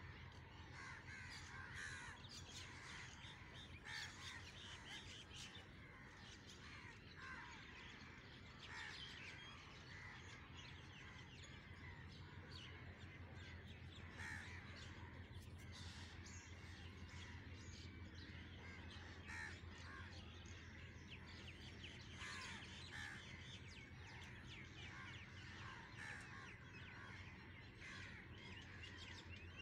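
Many birds calling faintly and continuously, short harsh calls overlapping one another, over a steady low hum.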